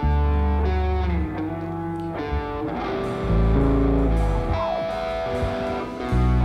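Live worship band playing: electric guitar and bass guitar over keyboard chords, the bass notes changing every second or two under sustained chords.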